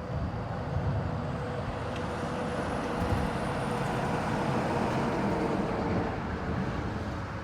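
A motor vehicle passing, its engine and tyre noise swelling at the start, holding steady, and easing off near the end.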